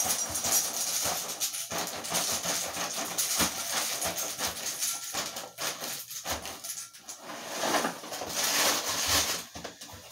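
Apple Pie Toast Crunch cereal squares poured from the box into a glass bowl: a continuous dry rattling of small pieces hitting the glass and each other, with a few brief lulls in the pour.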